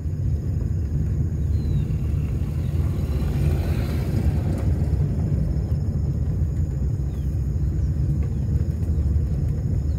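Steady low rumble of a car driving slowly on a dirt road, heard from inside the cabin: engine and tyres on the gravel. About three to four seconds in, a hiss swells and fades as another car passes close by on the narrow road.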